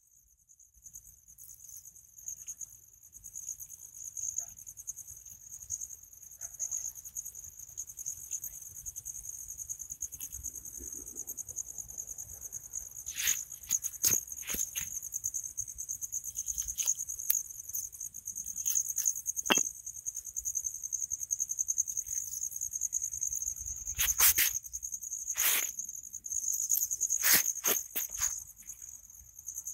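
Insects chirping in a steady high-pitched trill, with a string of sharp clicks and knocks from about halfway through.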